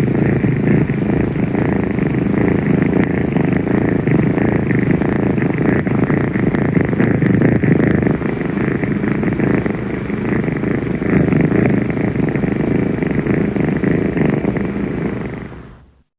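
Domestic cat purring, one long continuous purr that fades out near the end.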